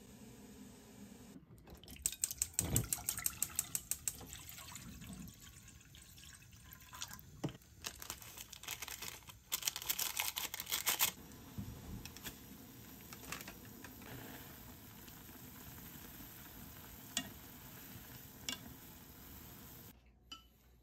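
Plastic ramen seasoning packets crinkling and rustling in several quick bursts as the soup powder and flakes are shaken and squeezed into a pot of water, with a few light ticks and clinks between.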